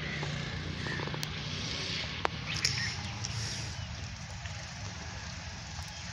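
Outdoor yard ambience: birds calling now and then over a steady low rumble, with one sharp click a little over two seconds in.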